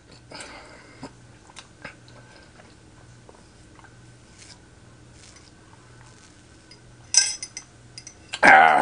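Quiet sipping of a drink through a straw from a plastic cup, with small scattered clicks. About seven seconds in there is a sharp, brief clatter as the cup is moved, then a short vocal sound from the drinker just before the end.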